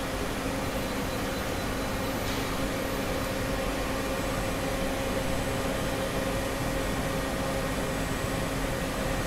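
Miyano BND-34S CNC turning center running: a steady machine hum with a held low tone, and no cutting or impact sounds.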